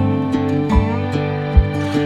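Background music: plucked acoustic guitar with a steady beat.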